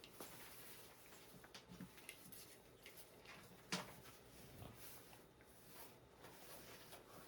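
Near silence: quiet room tone with faint scattered ticks and small clicks, and one sharper click a little under four seconds in.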